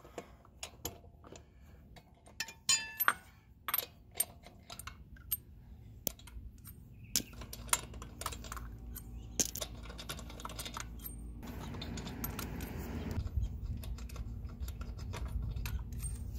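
Lug nuts being loosened with a breaker bar and socket and spun off the wheel studs by hand: scattered, irregular metallic clicks and clinks of nut, socket and stud. A low rumbling noise builds in the second half.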